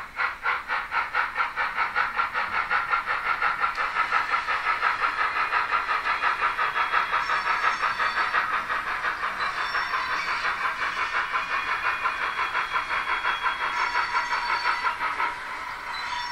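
Sound decoder of a Roco H0 model DB class 86 steam locomotive playing fast, even steam chuffs as the model runs. Its curve-squeal sound (function F7) comes in as thin, high squeals several times from about halfway through. Near the end the chuffing gives way to a steadier hiss.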